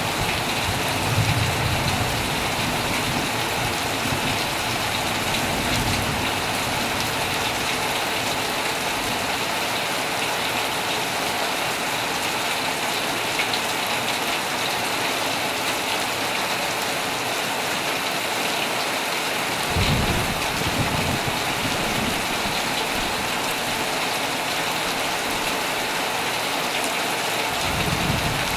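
Heavy rain falling steadily on a tent, with low rolls of thunder about a second in, around twenty seconds in, and again just before the end.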